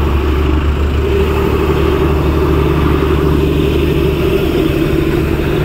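Steady engine noise from slow-moving road traffic and a narrow-gauge diesel locomotive running beside the road, a continuous low rumble with no sudden events.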